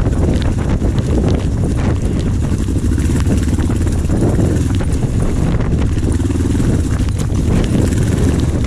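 Kawasaki KLE500 parallel-twin engine running steadily on a slow off-road ride, with frequent knocks and clatter from the wheels and suspension hitting stones.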